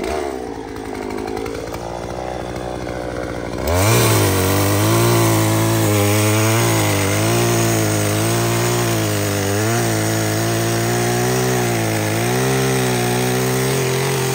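Gas chainsaw running at low speed, then throttled up about four seconds in and cutting through a downed tree log, its pitch dipping slightly now and then as the chain bites into the wood.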